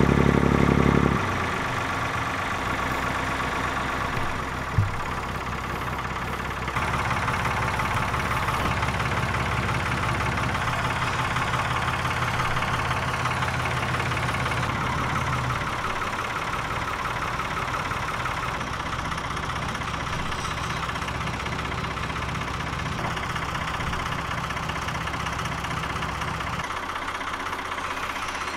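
Tractor diesel engine idling steadily at a boat launch; it runs louder for about the first second, with one sharp knock about five seconds in.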